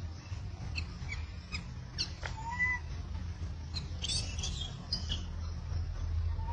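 Baby macaque giving short high squeaks and chirps, with one brief rising-and-falling whimper about two and a half seconds in and a cluster of squeaks about four seconds in: hungry distress calls of an infant wanting to nurse. A steady low hum runs underneath.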